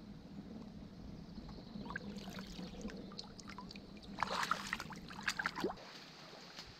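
Water gurgling and trickling as a fir-bark bucket is filled in a shallow puddle, then a louder burst of splashing and pouring about four seconds in as the full bucket is lifted out and water runs off it; the sound stops suddenly about six seconds in.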